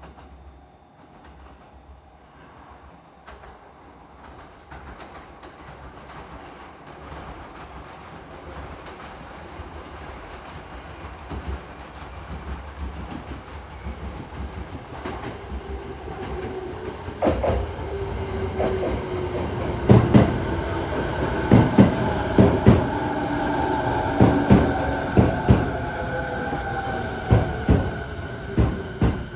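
JR East 209 series electric train pulling into the station, growing louder as it approaches. From about halfway in, its wheels click over the rail joints in quick groups, with a whine that falls in pitch as the train slows to a stop.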